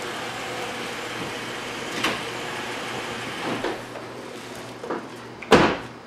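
A 2011 Ford Edge running as it pulls into the bay, its engine noise dying away about four seconds in, with a few light knocks from inside the car; then a car door shuts with a loud thump near the end.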